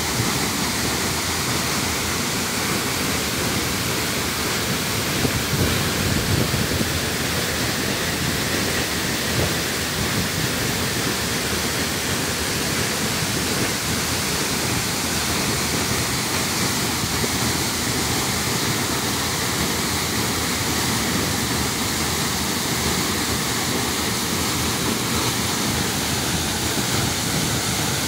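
Waterfall plunging from a cliff into a shallow pool: a steady rush of falling and churning water.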